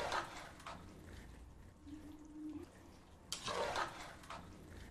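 A metal ladle stirring soaked rice and water in a pressure cooker: two watery swishing strokes, one at the start and one about three and a half seconds in.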